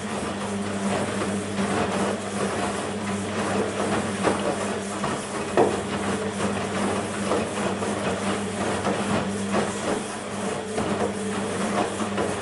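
BEKO WMB 51441 washing machine running a wash cycle: a steady hum with a rushing, hissing noise of water and scattered irregular soft knocks.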